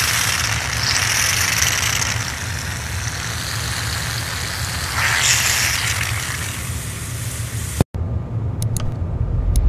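A steady sizzle as a hot knife blade melts into a gummy bear, swelling twice. It cuts off about eight seconds in, followed by a few sharp clicks.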